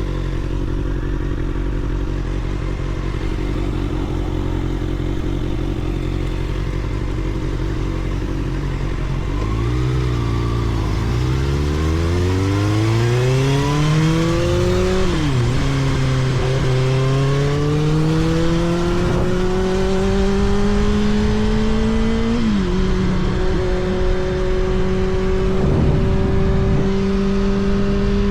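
2024 Kawasaki ZX-6R's 636 cc inline-four engine idling steadily, then revving as the bike pulls away. Its pitch climbs and drops sharply at two upshifts, about a third and four-fifths of the way through, before it settles into a steady, slowly rising run.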